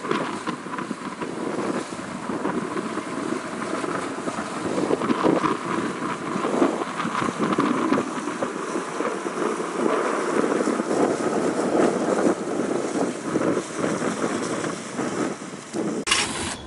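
Wind buffeting the microphone on the deck of a sailing yacht under way, with the rush of water along the hull. There is a brief louder hiss near the end.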